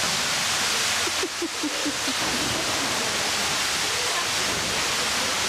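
Steady loud rushing noise of running water. It dips briefly a little after a second in, when a few faint, short, falling chirps are heard.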